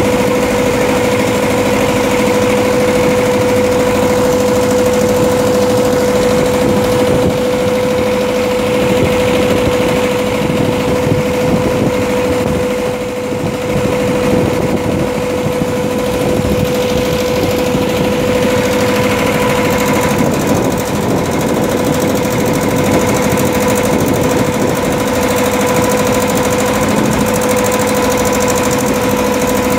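Engine of a wooden river ferry boat running steadily under way, a loud even drone holding one pitch.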